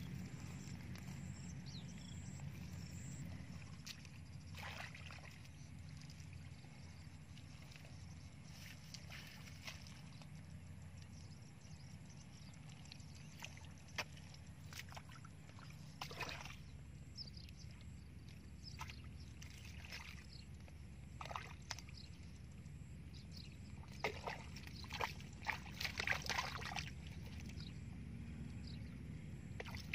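Water sloshing and splashing now and then over a low steady rumble, with a quick cluster of splashes about three-quarters of the way through.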